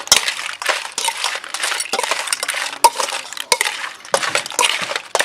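Spoon stirring a wet seafood salad in a mixing basin: a quick, irregular run of clinks and scrapes, some ringing briefly.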